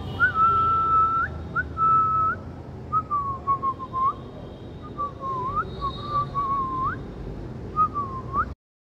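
A person whistling to call a puppy: a string of short held notes, several ending in a quick upward flick. The sound cuts off suddenly near the end.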